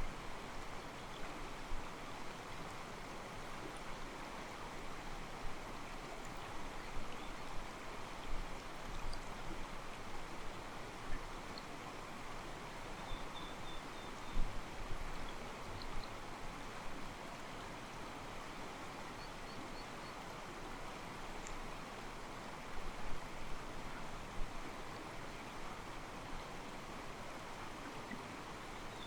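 Mountain stream flowing over rocks: a steady, soft rush of water with irregular sloshing and splashing against the stones. Faint bird chirps can be heard now and then.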